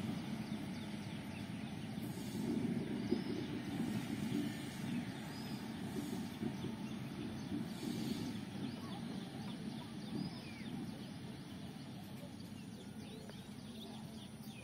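A low rumble of a distant vehicle that slowly fades, with birds chirping now and then.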